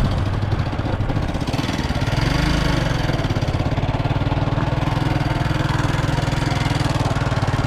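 Small single-cylinder engine running steadily as the vehicle travels, rising in pitch about two seconds in, then holding steady.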